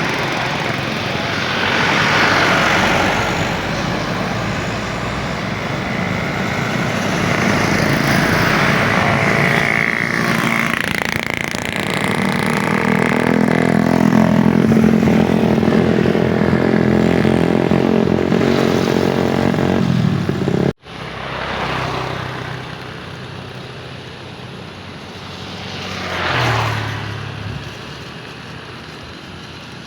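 Loud, steady aircraft jet-engine noise mixed with traffic, building over about twenty seconds. Then it cuts off abruptly to quieter road traffic, with one vehicle swelling past near the end.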